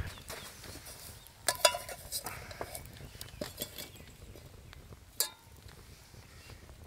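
Metal camp cookware clinking as a pot is handled and set on a burning log in a fire pit: a cluster of ringing clinks about one and a half seconds in, a few lighter ticks after, and one sharp metallic clink about five seconds in.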